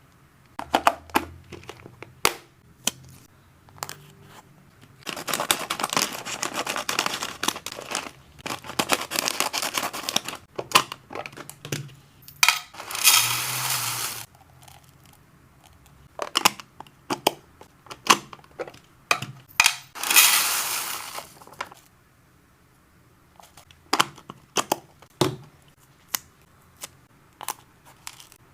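Hands handling hamster snack packaging: plastic bags crinkling and rustling in several long stretches, with scattered sharp clicks and taps throughout.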